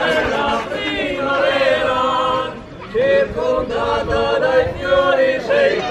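Male Alpine choir singing a cappella in several voice parts, holding long chords. The sound dips briefly about two and a half seconds in, then a new phrase starts.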